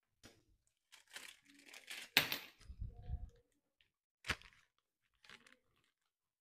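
Packing material being handled: crinkling and tearing in short bursts, with two sharp rips about two seconds and four seconds in.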